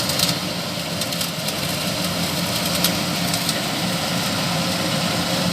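Diesel engine of a Kubota combine harvester running steadily.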